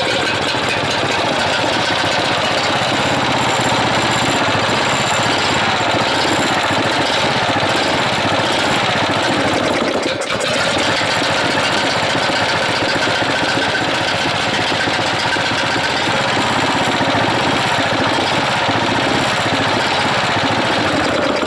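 Freshly reassembled Lifan 20 hp engine running steadily and loudly after a cold start that first failed because fuel was not getting through, with a brief dip in level about halfway.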